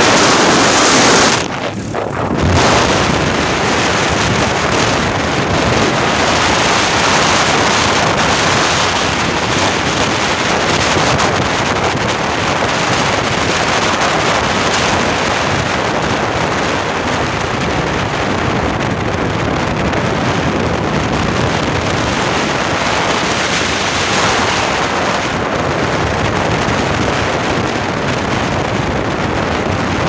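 Loud steady rushing noise with wind buffeting the microphone, dipping briefly about a second and a half in.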